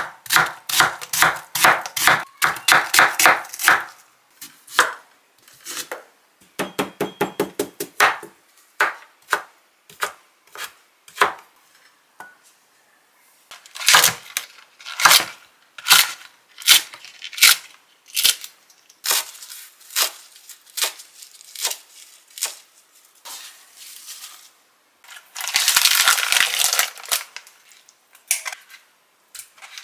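Chef's knife chopping on a cutting board: quick runs of cuts as half an onion is sliced thin, then slower, scattered chops as a large Korean green onion (daepa) is cut into big pieces. Near the end, a rustle lasting about two seconds.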